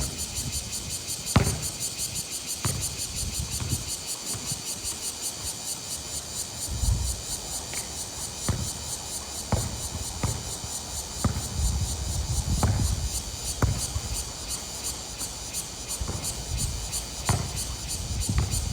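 Insects chirping steadily in a fast, even pulse. About ten dull thuds fall at irregular intervals over it, the loudest about a second and a half in.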